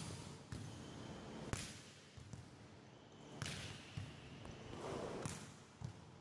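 Volleyballs being hit in a passing drill: about six sharp slaps of the ball, irregularly spaced.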